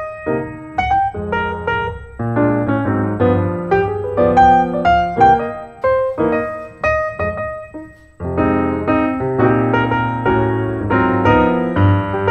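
Piano music, lively chords and runs, with a brief pause about two-thirds of the way through before the playing starts again.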